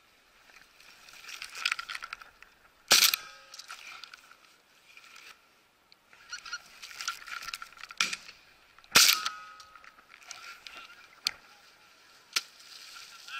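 Flock of geese honking overhead, with two loud shotgun shots about six seconds apart, the first about three seconds in; a few fainter sharp cracks follow near the end.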